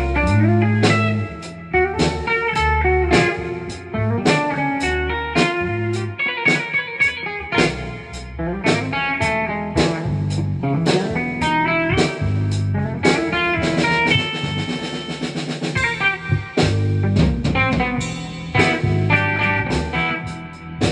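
A guitar, bass and drum kit playing an improvised jam together: low bass notes and guitar lines over steady drum hits. The music stops abruptly at the end.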